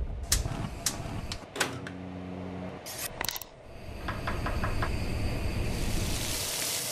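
Kitchen sound effects: a few sharp knocks and clicks, a brief low hum about two seconds in, then a quick run of knife chops on a cutting board around four seconds in, followed by the hiss of food sizzling in a sauté pan that grows louder near the end.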